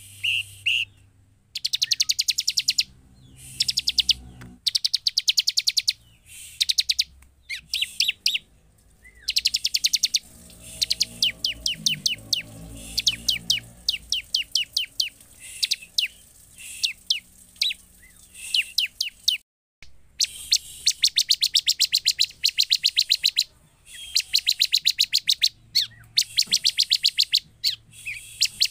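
Bar-winged prinia (ciblek) singing: repeated runs of very fast, high, sharp chattering notes, each run lasting one to two seconds, with short pauses between.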